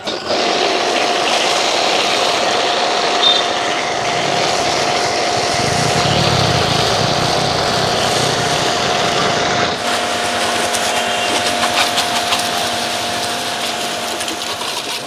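Shakti S3 electric high-pressure washer running, its pump driving a foam can that sprays a steady hiss of shampoo foam. About ten seconds in, the sound changes and a lower hum comes through beneath the hiss.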